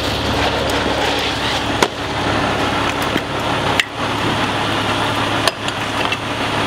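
Fire engine's engine idling with a steady hum, broken by a few short knocks.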